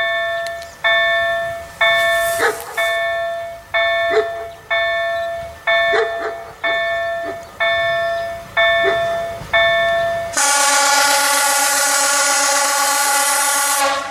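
Level-crossing warning bell striking about once a second, each stroke ringing and dying away. Near the end, the approaching Czech-built class 810 railbus sounds its horn, loud and steady, for about three and a half seconds.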